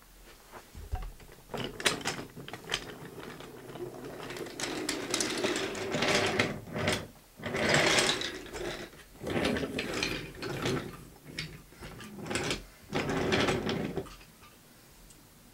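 Camera lens autofocus motor whirring in repeated bursts of a second or two with short gaps, hunting for focus.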